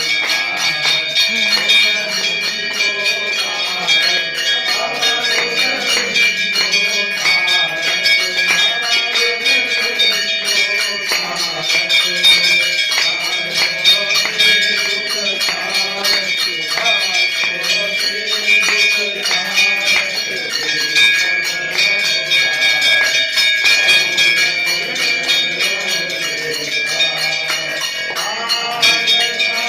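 Temple bells rung rapidly and without a break for the aarti, over a group of voices singing the hymn.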